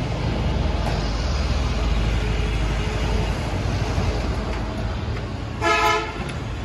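Motorcycle engine running as the bike rides slowly up and comes to a stop, with a short horn beep near the end.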